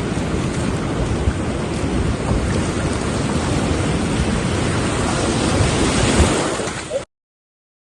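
Surf washing on the shore, with wind buffeting the microphone: a steady rushing noise that cuts off suddenly near the end.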